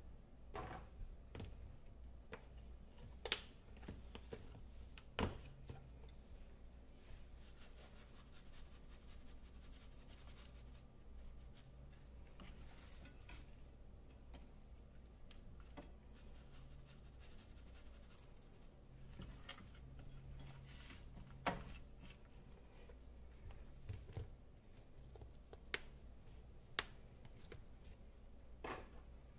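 Faint handling sounds of hands turning and seasoning whole round scad on a plate: soft rubbing and scraping with a handful of sharp clicks and taps scattered through, the loudest about three seconds in and near the end.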